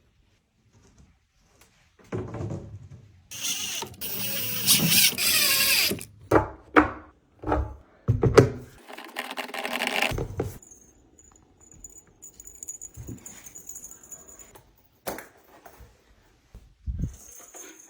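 Workshop tool work: a power tool whirring for a few seconds, then a series of knocks and clatters.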